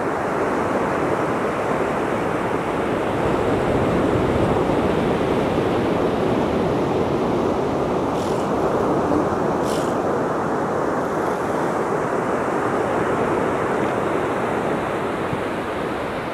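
Steady wash of ocean surf breaking on the beach, with some wind on the microphone; no seal calls stand out.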